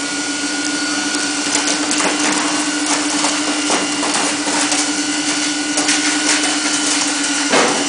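Two-burner rice husk gas stove running with both burners lit: a steady hum with a constant low tone over a hiss, broken by scattered crackles and a sharper knock near the end.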